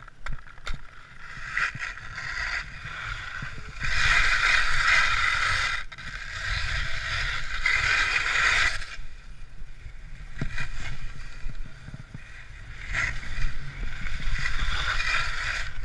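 Skis scraping and hissing over icy, hard-packed snow in long surges as the skier slides and turns, over a steady low rumble.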